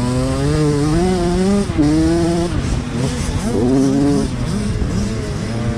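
Motocross bike engine heard on board, revving hard as the bike accelerates down a dirt straight, its pitch climbing and then dropping sharply with throttle changes and gear shifts, twice in the first half, then wavering through several quick rises and falls.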